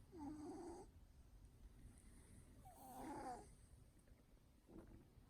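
A cat snoring faintly: a wavering, pitched snore about every two and a half seconds, three in all, the last one starting near the end.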